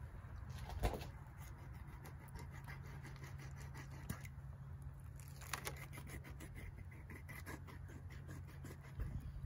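Faint scratching and small knocks of a fillet knife slicing belly meat from a flathead catfish on a wooden board, with a sharper knock about a second in, over a steady low hum.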